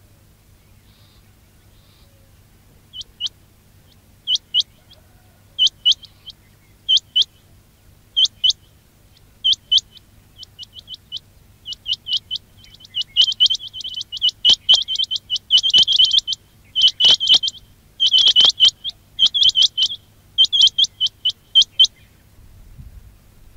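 Quail calling: short, sharp, high notes, mostly in twos, about a second apart. About halfway through they come faster and louder in a dense run, then stop shortly before the end.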